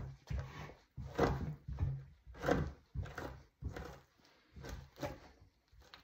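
Two-handled fleshing knife scraping flesh and fat off a beaver hide stretched over a wooden fleshing beam, in about ten short scraping strokes.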